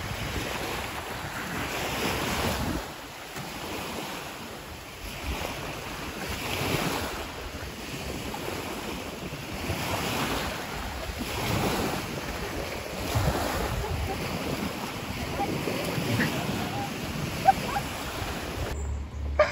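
Sea waves washing onto the shore, the sound swelling and falling back every few seconds, with wind buffeting the microphone.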